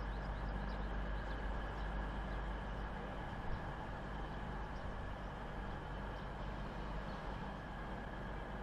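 CrossCountry Voyager diesel multiple unit's underfloor diesel engines idling steadily, a constant low hum.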